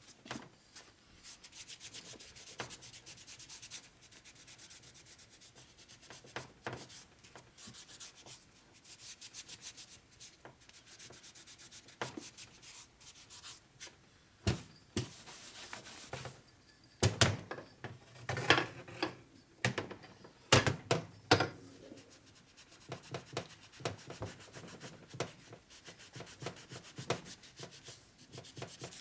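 Cloth shop rag rubbed back and forth over an aluminium engine crankcase, wiping away excess case sealer, in quick repeated strokes. A few sharp knocks come in the middle, the loudest sounds here.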